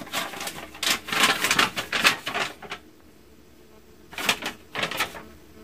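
Paper crackling and rustling as a letter is handled and unfolded from its envelope: a run of quick crinkles, a pause of about a second, then a few more.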